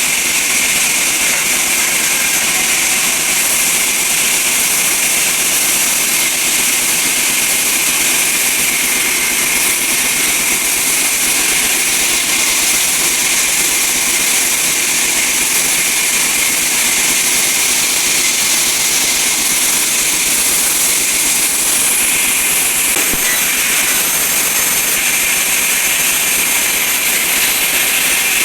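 Sawmill band saw running steadily, a loud, unbroken high-pitched whine and hiss.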